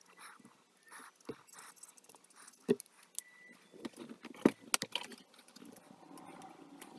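Copic alcohol marker nib rubbing across marker-pad paper in short, quick strokes, with a few sharp clicks and knocks in the middle, the loudest about four and a half seconds in.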